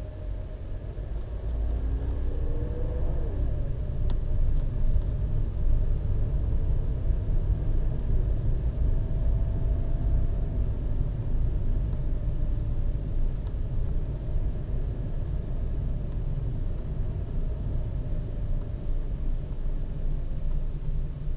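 Car driving slowly, recorded from inside the cabin by the dashcam's built-in microphone: a steady low engine and tyre rumble. The engine pitch rises as the car picks up speed about two seconds in, and there is a single brief click about four seconds in.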